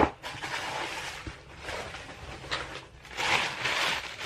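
Shoe-box packing wrap rustling and crinkling in patches as the wrapped shoes are handled, after one sharp tap at the very start.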